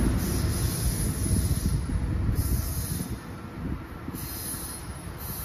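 NJ Transit electric commuter train fading away down the line after passing, the rumble of its wheels on the rails dying down.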